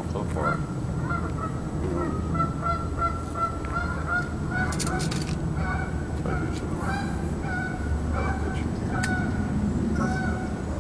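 Geese honking repeatedly, a steady series of short calls. A quick cluster of clicks comes about five seconds in.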